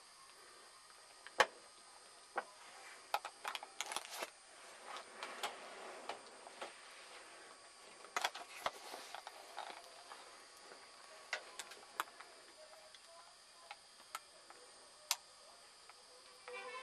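Soft fabric rustling and scattered light clicks as small kittens crawl and shift about on a blanket in a plastic laundry basket. The rustling is busiest in the first half, with single sharp clicks later on.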